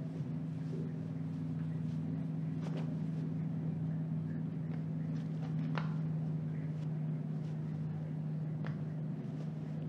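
A steady low hum of a couple of held tones, with a few faint ticks over it.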